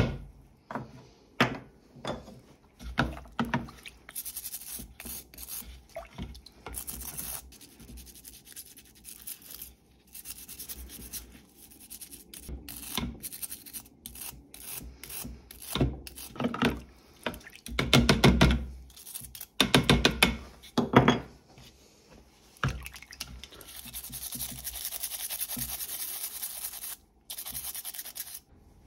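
Small stiff brush scrubbing metal and plastic secateurs parts over a bucket of cleaning liquid: irregular scratchy strokes with splashes and drips, several louder knocks and clatters around the middle, and a steadier stretch of fast brushing near the end.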